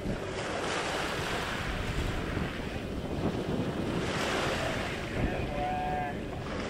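Wind buffeting the microphone over a steady wash of water, with a brief faint pitched tone near the end.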